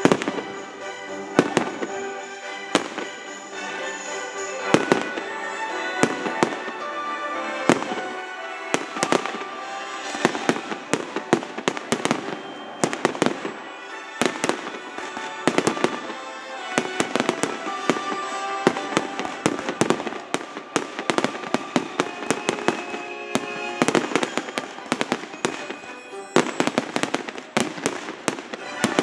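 Aerial firework shells bursting one after another, sharp bangs and crackles that come thicker and faster in the second half, over background music with long held notes.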